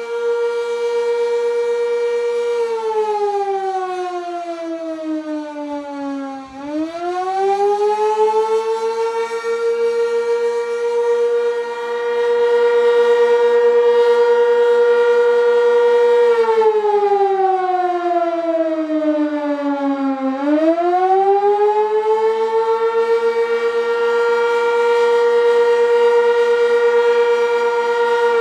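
Sentry 16V1T-B single-tone outdoor warning siren sounding the attack signal during a test. A loud steady tone falls away over about four seconds and winds back up to pitch. This happens twice, and the tone begins dropping again at the end.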